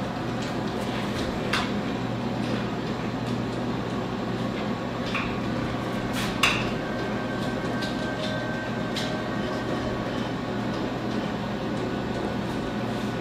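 Light metal clanks and knocks as a Weber Summit charcoal grill's enameled steel bowl is lowered into and seated in its frame ring, four or so separate knocks with the loudest about six seconds in. A steady low hum runs underneath.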